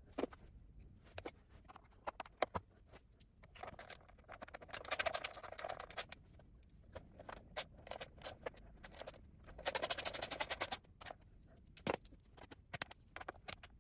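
Battery bracket bolts being tightened with a ratchet wrench: two runs of rapid, even clicks, one for each bolt, about four seconds in and again near ten seconds. Scattered small metal clicks and taps come from the bracket and bolts being handled.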